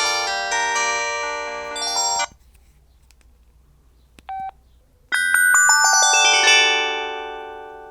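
Samsung SPH-N195 mobile phone playing its built-in polyphonic ringtones through its small speaker: one melody cuts off about two seconds in, a short beep follows a couple of seconds later, and about five seconds in the next ringtone starts, a run of bright chiming notes that ring and fade.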